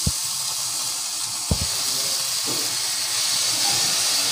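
Hot oil sizzling steadily in a frying pan as raw tomato slices are laid into it, with two soft low thumps, one at the start and one about a second and a half in.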